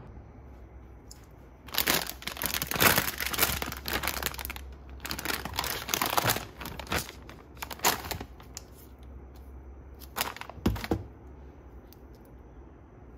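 Plastic bags of kale and spinach crinkling as they are handled, in repeated bursts over several seconds, then two short crinkles with a knock near the end.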